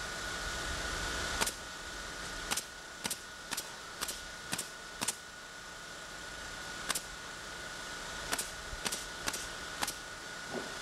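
Hammer striking nails into the shingled roof: sharp single knocks, a run of about two a second, a pause of a couple of seconds, then another run near the end.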